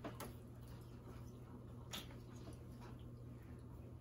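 Quiet eating and food-handling sounds at a table: faint mouth noises and a few soft clicks, one just after the start and another about two seconds in, over a low steady hum.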